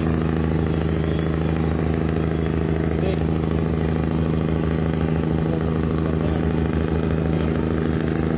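Steady drone of a boat's engine running at constant speed, an even low hum with no change in pitch or loudness.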